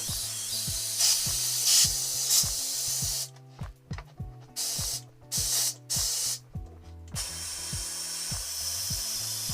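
Compressed air hissing from an air-compressor inflator into a tubeless mountain-bike tire that will not seat, so the air escapes past the bead. The hiss runs steadily, cuts in and out in short bursts in the middle, then runs steadily again. Background music with a steady beat plays underneath.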